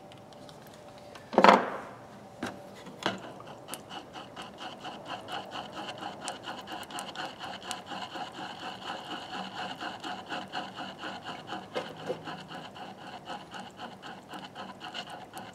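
Two-part epoxy being stirred with a metal screwdriver shaft on a wooden board: rhythmic scraping and rubbing, about three strokes a second, after a sharp knock about a second and a half in.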